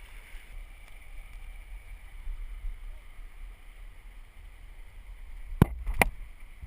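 Low rumble of river water and wind on a GoPro mounted on a raft's oar. Near the end come two sharp knocks about half a second apart.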